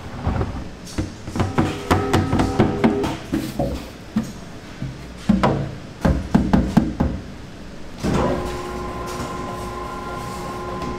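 Bakery work clatter: irregular knocks and clanks, some ringing briefly like metal trays or utensils. About eight seconds in, a steady machine hum takes over.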